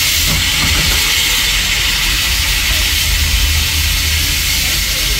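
Steam hissing steadily as it vents low beside the track from the Disneyland Railroad's 4-4-0 steam locomotive E.P. Ripley, over a low rumble.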